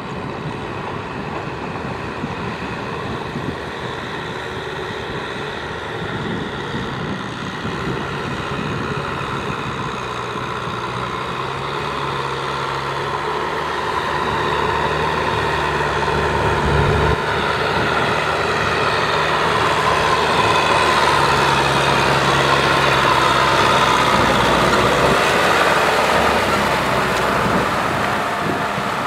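Kubota M6040SU tractor's diesel engine running steadily under load while its rear rotary tiller churns wet paddy mud. It grows louder through the middle as the tractor comes close, then drops off near the end.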